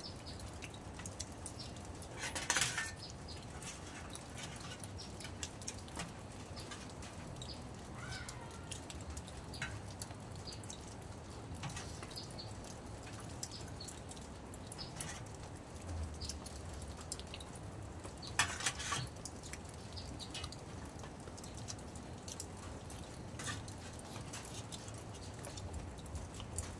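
Eating sounds around a shared metal tray of chicken curry: small clicks and smacks of hands and a spoon against the metal, with two louder short clinks, one a couple of seconds in and one about two-thirds of the way through.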